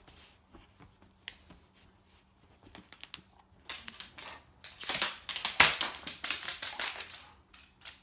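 Dog chewing a toy made of an empty plastic water bottle stuffed inside a sock: the bottle crackles and crunches in a dense run of sharp crinkles, sparse at first and thickest in the middle.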